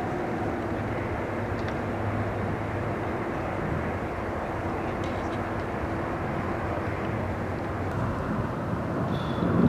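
Steady low rumble of a distant large vehicle, with a faint hum running through it.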